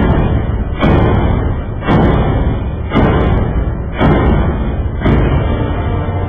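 Six heavy booming hits about a second apart, each fading out in a low rumble.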